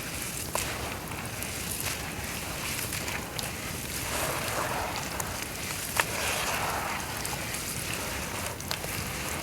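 Dry brown dirt crumbling apart in water: a steady fizzing hiss with scattered small crackles and pops. The fizzing swells between about four and seven seconds in, with one sharper pop about six seconds in.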